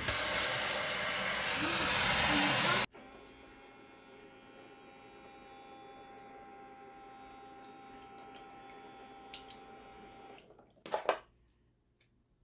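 Tap water running hard into the toy sink's water tank for about three seconds, getting a little louder as it fills, then cut off abruptly. After that, a faint steady hum with thin whining tones and a few light ticks, ending with a short louder burst near the end.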